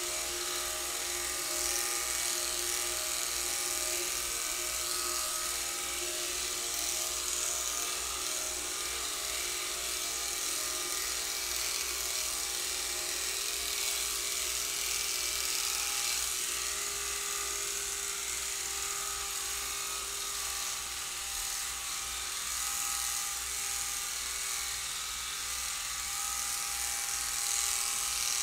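Electric pet hair clippers buzzing steadily as they shave a cat's fur.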